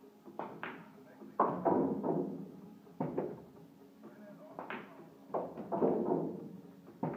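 Background music, with struck or plucked notes ringing over a steady backing and a phrase that repeats about every four seconds.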